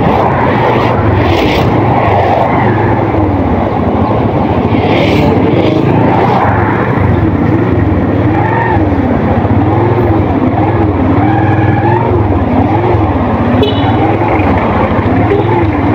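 Motorcycle engine running steadily as the bike rides along, with a low drone and a rushing noise from the moving air. A fainter tone rises and falls over and over from about three seconds in.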